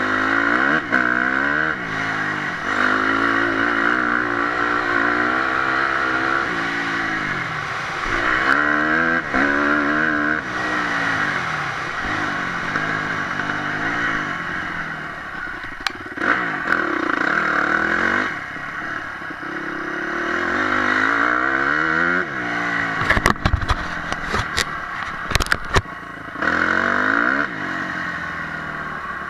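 Honda motocross bike's engine revving up and dropping back again and again as it accelerates and shifts through the gears, then shuts off for the corners, heard close up from the rider's helmet. A cluster of sharp knocks and clatters comes a little over three-quarters of the way through.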